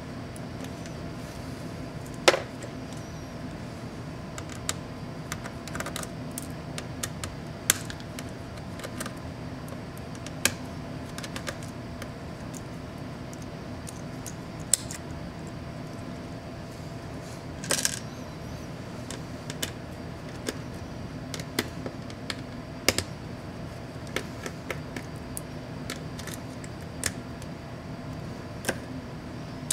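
Scattered sharp clicks and light clatters of small plastic and metal laptop parts being pried off and handled by hand, irregular, with the loudest click about two seconds in and a brief cluster a little past the middle. A steady low hum runs underneath.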